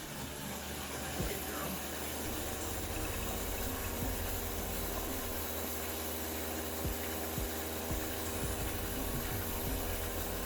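Electric blender running steadily at full speed, pureeing food.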